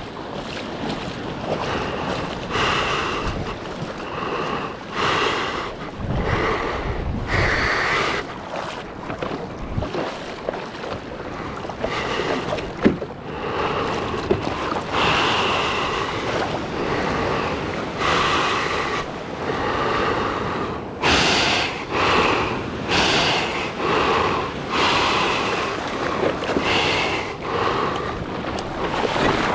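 A surfer paddling a surfboard through whitewater: splashing hand strokes about once a second over a steady wash of moving water and wind on the microphone.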